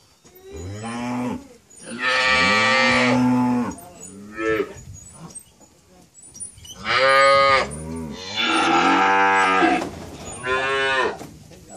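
A zebu cow bellowing in a cattle chute: a series of about six loud, drawn-out moos that rise and fall in pitch, some lasting over a second. This is the cry of an animal in distress while it is hot-iron branded.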